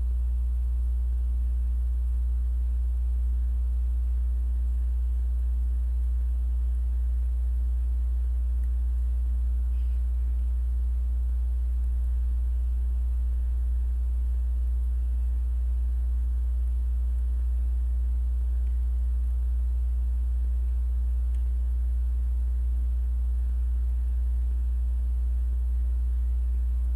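Steady low hum, even and unchanging throughout, with no other clear sound over it.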